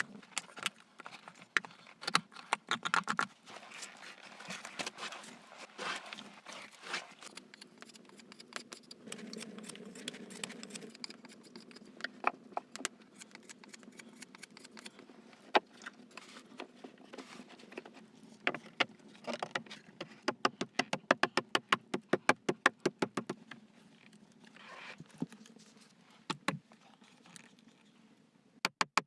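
Irregular taps, knocks and scrapes of hands-on work with wood or stone, with a fast, even run of clicks about twenty seconds in.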